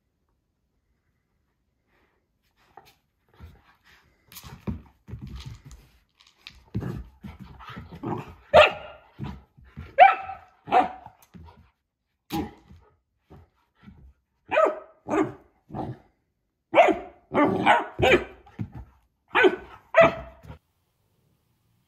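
Doberman puppy barking, a string of short barks that begins a few seconds in and comes in clusters, the loudest near the end.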